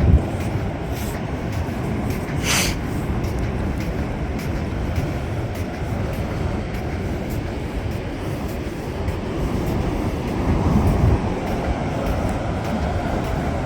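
Steady low rumble of wind on the microphone on an open beach, with one brief hiss about two and a half seconds in.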